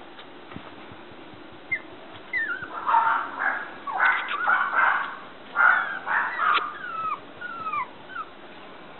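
Toy poodle puppy whimpering and yipping. A run of high-pitched cries starts about two seconds in and ends in several short falling squeaks.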